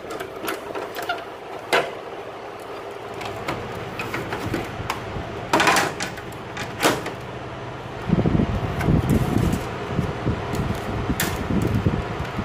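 Sharp air conditioner running with a steady hum, among scattered clicks and knocks. About eight seconds in, a low rumble of moving air buffeting the microphone sets in.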